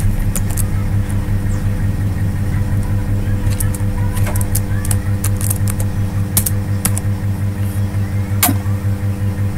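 Computer keyboard keys clicking in short runs as code is typed, over a steady low hum that is the loudest sound throughout.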